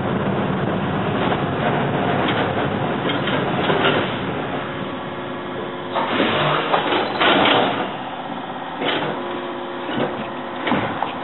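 Running noise inside a moving city tram, steady and dense, with a few louder clatters and knocks in the second half.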